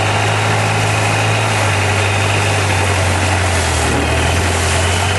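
Long-tail boat's engine running steadily under way: a loud, low drone whose pitch dips slightly about two seconds in, over a steady hiss of wind and spray.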